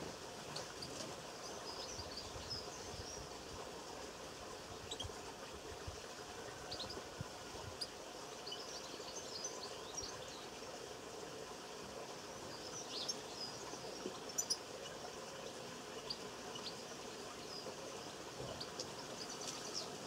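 Small birds chirping and twittering: many short, high calls scattered throughout, over a steady low background hum. A couple of sharp clicks come about fourteen seconds in.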